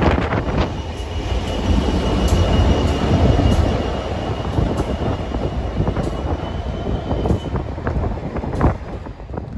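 A diesel-hauled test train runs through the station past the platform: a steady rumble of wheels on rail with scattered clicks and a thin high whine through the middle. The rear Colas Rail diesel locomotive goes by partway through, and the sound dies away near the end as the train draws off.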